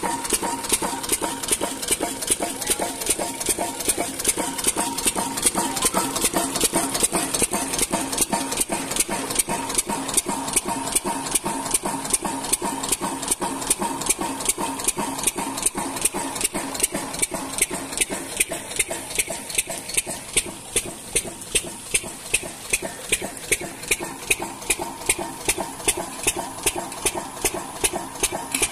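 Mercury stationary diesel engine running at high speed while belt-driving a water pump, with an even, rapid knocking beat of about four strokes a second.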